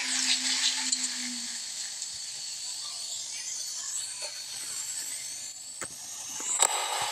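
Steady hiss of a live broadcast's open-air background noise, with a low steady tone in the first second and a half and a sharp click near the end.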